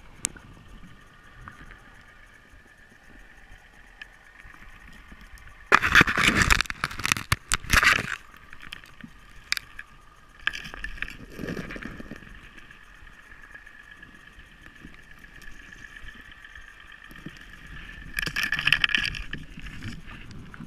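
Underwater sound picked up by a camera during a freedive: a steady high whine, with loud rushing, scraping bursts about six to eight seconds in and again near the end.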